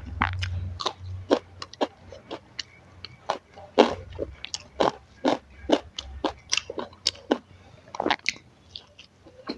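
Close-miked chewing and biting of crisp food, with many sharp, irregular crunches, about two or three a second.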